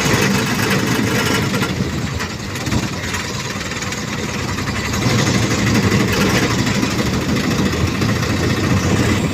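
An engine running steadily close by, a fast even pulsing; it eases slightly about two and a half seconds in and comes back up.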